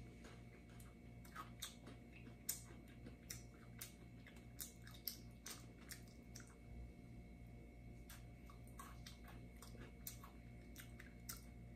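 Person chewing a chocolate and graham-cracker snack close to the microphone: faint, irregular crunches and mouth clicks.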